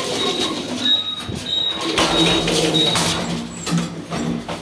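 Metal collapsible grille gate being slid along its track: a few short, high squeaks, then a rolling, scraping rumble for a couple of seconds.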